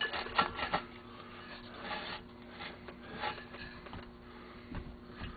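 Metal engine parts being handled during a snowmobile engine rebuild: a few light clicks and knocks in the first second, then faint rubbing and small taps over a steady low hum.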